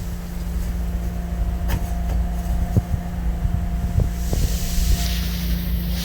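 Insulation removal vacuum running with a steady low drone and a faint whine, with several short knocks about two, three and four seconds in.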